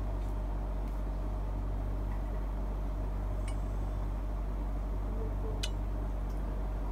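A steady low hum, with a couple of faint clicks partway through.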